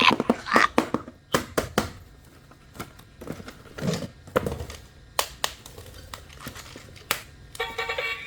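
Plastic toys and packaging being handled: scattered clicks and knocks with some crinkling. Near the end a short electronic tune starts up.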